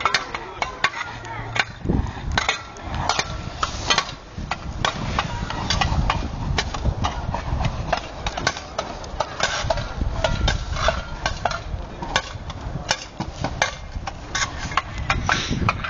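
Irregular run of knocks and scrapes from a spade chopping and scraping at ice on a road surface.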